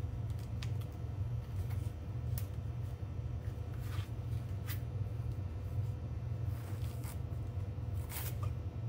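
Chef's knife cutting a half head of purple cabbage on a cutting board: scattered crisp cuts and knocks, closer together near the end, over a steady low hum.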